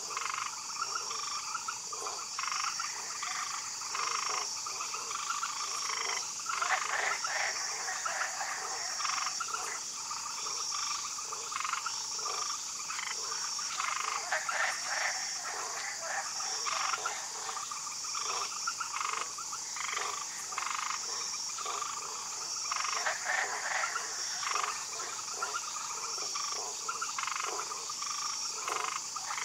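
Frog chorus: many overlapping croaking calls, over a steady high buzz with a faint pulse about every second and a quarter.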